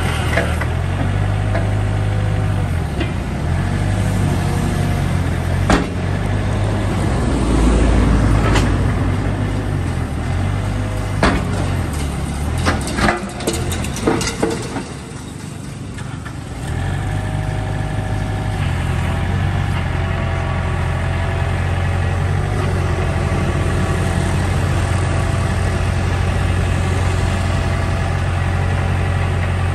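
Mitsubishi ME30 mini excavator's diesel engine running under hydraulic load as the boom and arm move, its note shifting with the load. Several sharp metal clanks come in the middle, the engine eases off briefly, then it runs steadily as the crawler tracks drive the machine forward.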